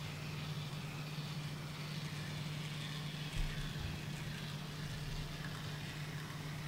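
N scale model train running along the layout track: a steady low hum with a faint hiss, and one soft thump about three and a half seconds in.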